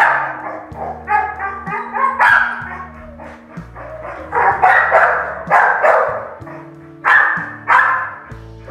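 A dog barking, about six sharp barks at irregular intervals.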